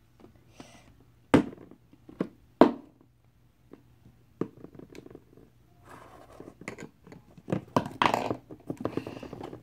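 Plastic toy baby bottles being picked up and set down on a cardboard box: a few sharp knocks in the first three seconds, then scraping and rustling as they are shuffled around.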